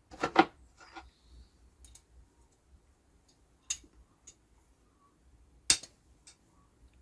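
Tools and small parts of an espresso machine's solenoid valve clicking and knocking as they are handled during disassembly: a few separate sharp clicks, the loudest just after the start and about six seconds in.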